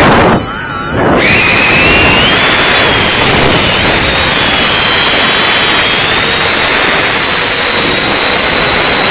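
Ducted drone's electric fans whining loudly over a rushing airflow noise, the pitch shifting with throttle. The sound drops away briefly near the start, as if the throttle is cut, then comes back with a rising whine and runs on steadily.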